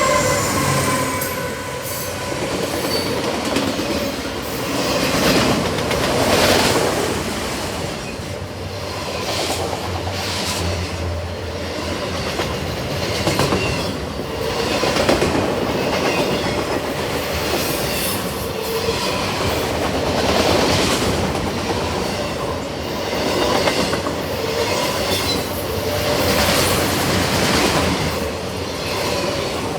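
Freight train's autorack cars rolling past close by, a steady rumble of steel wheels on rail that swells rhythmically as wheel sets go by, with brief high wheel squeals now and then.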